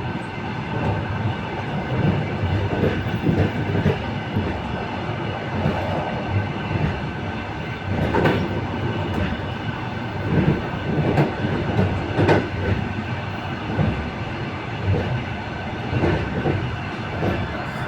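Passenger train wheels clattering over rail joints, heard from the carriage vestibule: a steady rumble with a stream of uneven knocks and a few sharper bangs.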